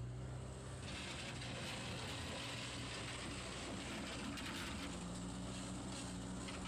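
Gehl Hydracat 4400 skid steer's engine running steadily as the machine is test-driven on its freed-up final drives. A broad hiss joins the engine about a second in.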